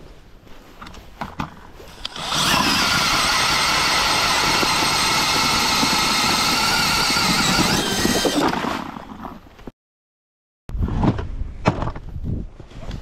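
Cordless DeWalt drill spinning an ice auger through lake ice: a steady motor whine and cutting noise that starts about two seconds in and winds down about six seconds later. After a short break, a few knocks and handling sounds.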